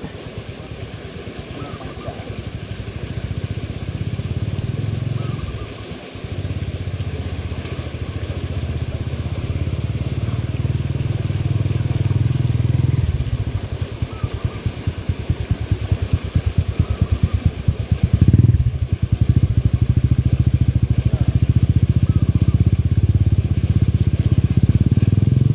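A small engine running steadily, slowly growing louder, its firing turning into a fast, even pulsing about halfway through.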